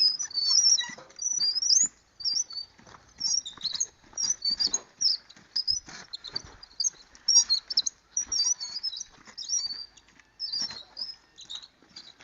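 A flock of small birds chirping busily and continuously, with short irregular scrapes and knocks underneath.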